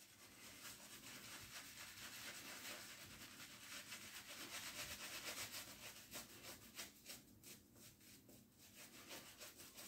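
Faint, irregular rubbing strokes of a badger shaving brush working lather from vintage Colgate shaving soap, a little busier in the middle.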